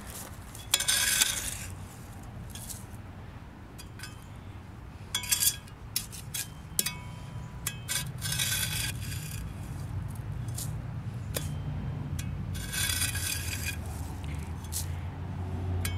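Scraping and crunching in dry, gravelly dirt and pine straw as the ground is dug at, in several short bursts a few seconds apart.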